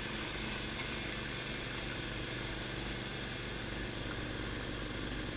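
John Deere tractor's engine running steadily under load, driving a 44-inch snowblower through deep snow.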